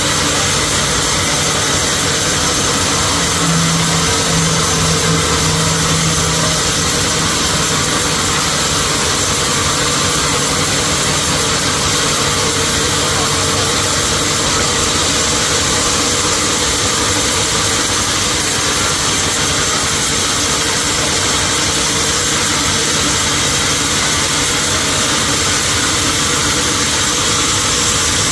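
Sawmill machinery running with a steady, loud mechanical noise, and a stronger hum for a few seconds near the start.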